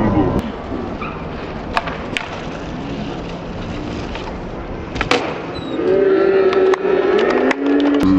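Skateboards rolling on smooth concrete, with several sharp clacks of boards and trucks hitting ledges and the ground: one early on, two a couple of seconds in, one near the middle and a cluster near the end.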